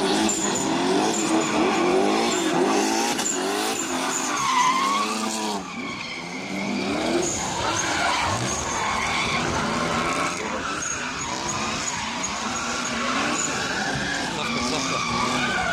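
Drift cars' engines revving up and down over and over while their tyres squeal and skid in slides. The sound dips briefly about five and a half seconds in.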